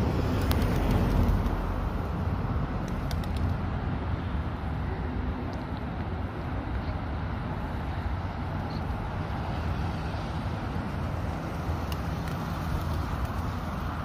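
Steady low rumble of distant road traffic, with a few faint clicks scattered through it.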